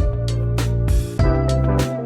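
Background music: sustained pitched notes over a deep bass, with a regular beat about twice a second.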